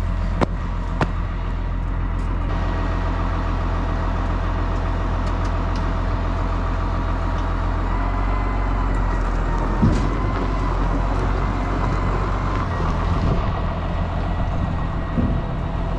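Farm tractor's diesel engine running steadily, with two sharp clicks about a second in and a knock about ten seconds in.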